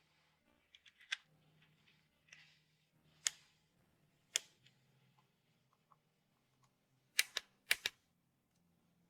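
Sharp clicks and clacks of tools and parts being handled, about seven in all and irregularly spaced, the last four coming in two quick pairs, over a faint steady hum.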